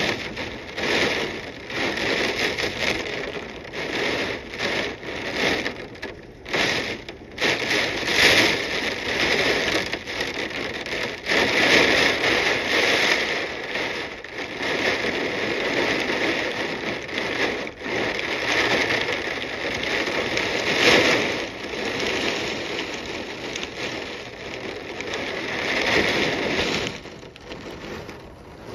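Hurricane wind and driving rain, a loud rushing hiss through thrashing trees and shrubs that surges and eases in gusts every few seconds.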